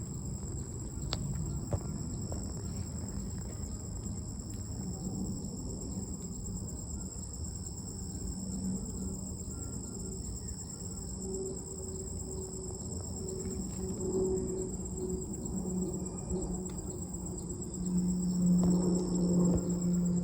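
A steady, high-pitched chorus of insects with several unbroken tones. A low rumble runs underneath, and a low hum swells louder near the end.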